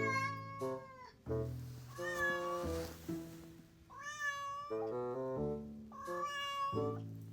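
A Ragdoll cat meowing four times, about two seconds apart, each meow a drawn-out call that rises and falls in pitch: wake-up meows, the cat acting as an alarm clock. Piano music plays underneath.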